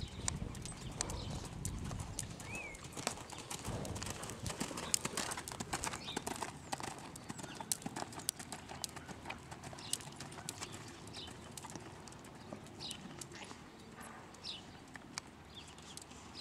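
Hoofbeats of a trotting horse on the arena's dirt footing, a running series of dull clops that are louder in the first half and grow fainter later.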